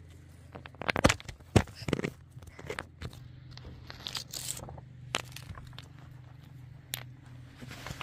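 Irregular crunching and knocking handling sounds, with several sharp knocks about one to two seconds in, over a low steady hum.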